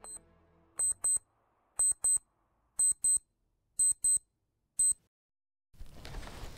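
Wristwatch alarm beeping in quick high-pitched pairs, about once a second, ending with a single beep about five seconds in. A steady background hiss starts near the end.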